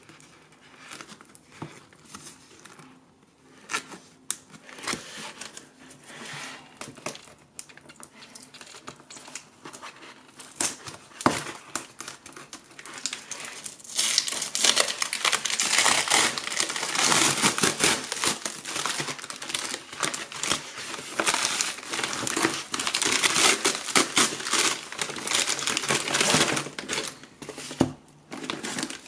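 Plastic shipping mailer being torn open and handled, crinkling as the product is pulled out. Scattered quiet rustles and clicks at first, then loud, dense crinkling for about the second half.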